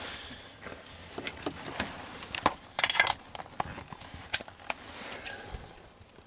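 Handling noise from a plug-in 12-volt voltmeter being fitted into its socket: irregular plastic clicks and light knocks with cables moving, a cluster of clicks about two and a half seconds in and a sharper click a little past four seconds.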